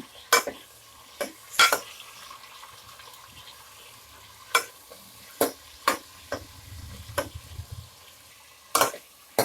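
A spoon scraping and knocking against a pressure cooker pan as chopped onion, tomato and radish are stirred in hot gingelly oil, with a faint sizzle. The knocks come unevenly, about nine times.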